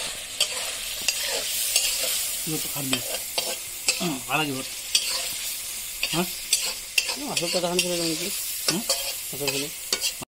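Pork frying in hot oil in a steel kadai with a steady sizzle, stirred with a metal spatula that clicks and scrapes against the pan. A few short wavering pitched sounds come and go in the background.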